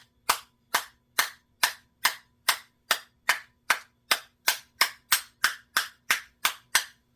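Sharp, evenly spaced taps, about two and a half a second, knocking dents out of the metal hood of a vintage Tru Temper 1-2-3 spincast reel held in the hand.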